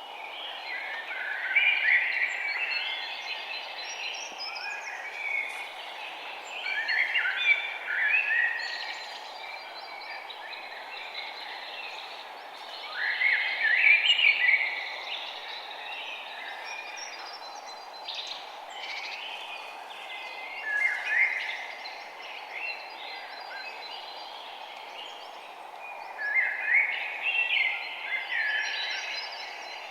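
Songbird singing in short chirping phrases of about two seconds, repeated roughly every six seconds, over a steady background hiss.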